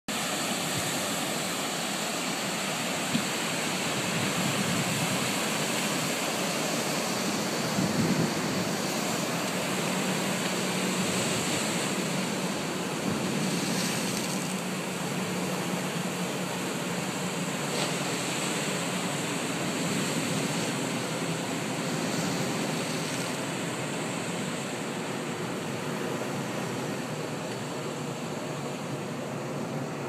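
Surf on a bay shore: a series of waves breaking and washing onto a rock-lined shoreline, a steady rush of water throughout.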